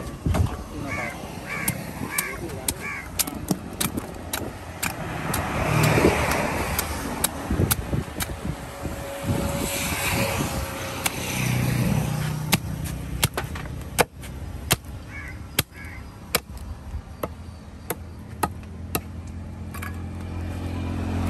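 A knife chopping through fish on a wooden block: irregular sharp knocks, with vehicles passing by.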